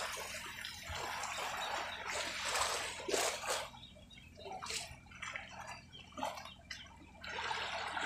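Sea water lapping and sloshing against a wooden boat's hull: a steady wash at first, then a run of separate splashes with quieter gaps, and the wash building again near the end.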